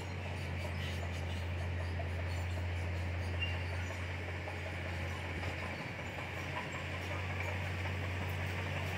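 Komatsu D31PX crawler bulldozer's diesel engine running steadily with a low drone, with clatter from its steel tracks.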